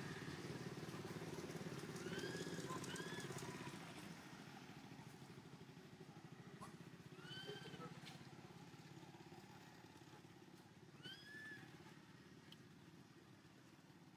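A low motor vehicle engine drone, like a motorbike, fading after about four seconds. Short high chirping calls sound over it a few times, each rising and falling in pitch.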